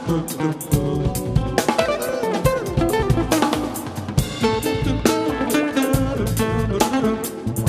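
Live band music: a drum kit keeps a steady beat under guitar and melodic instrument lines.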